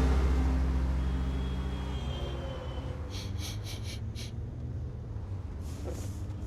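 A low steady rumble with a held hum that fades over the first three seconds, and a brief run of quick high ticks about three seconds in.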